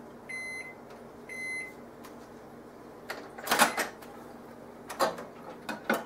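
Microwave oven beeping twice, about a second apart, as its end-of-cycle reminder. About three and a half seconds in the door pops open with a loud click, followed by a few clunks as the plastic Range Mate cooker is handled inside the oven.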